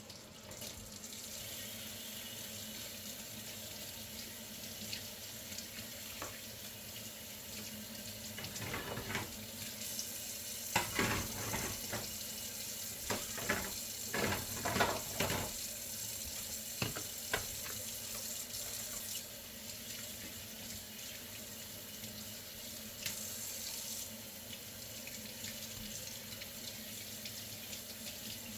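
Kitchen tap running steadily into a sink as raw lamb shoulder chops are rinsed under it, with a run of irregular splashes and knocks in the middle.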